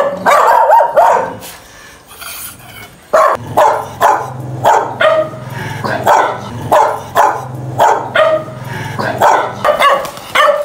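Dog barking repeatedly and loudly: a quick flurry of barks in the first second and a half, a short lull, then a steady run of barks about two to three a second from about three seconds in.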